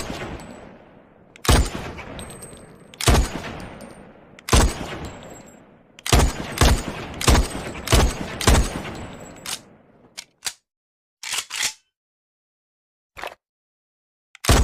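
SVD Dragunov semi-automatic sniper rifle firing eight shots, each with a long echoing tail: the first three about a second and a half apart, then five in quicker succession. After the shots come a few short, quieter clicks.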